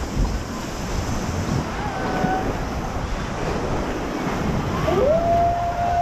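Whitewater rushing and splashing around a round raft on a river-rapids ride, with wind on the microphone. About five seconds in, a long, steady high note cuts in over the water and holds.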